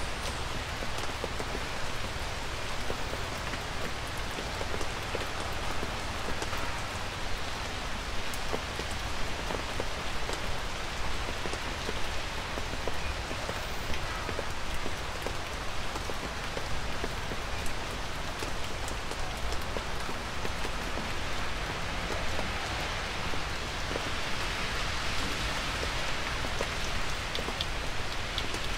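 Light rain falling steadily, with individual drops heard as many small ticks over a low, even rumble.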